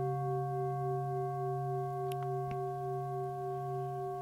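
Singing bowl ringing on with several overlapping tones, held steady with a slight wobble and fading very slowly. Two faint clicks about two seconds in.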